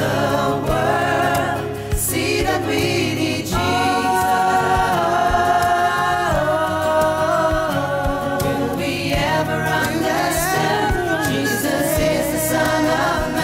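A mixed choir of men's and women's voices singing a gospel song in harmony, with long, held chords that change every couple of seconds.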